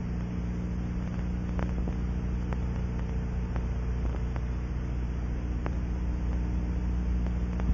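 Steady low electrical hum with a faint hiss and a few faint ticks.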